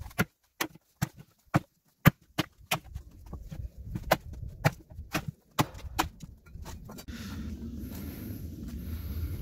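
Hard steps on frozen ground, about two a second, then a steady low rumbling noise from about seven seconds in.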